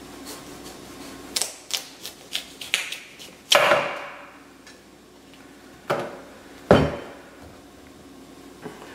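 Chef's knife cutting through the rind and flesh of a pumpkin: a quick run of crisp crunching clicks, then a loud crack about three and a half seconds in as the slice breaks free. Two knocks follow, the second and heavier one about seven seconds in, as the pumpkin is set down on the wooden board.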